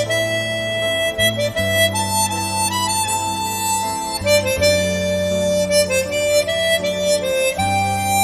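Easttop titanium-comb chromatic harmonica playing a slow melody of long held notes, over a low sustained accompaniment.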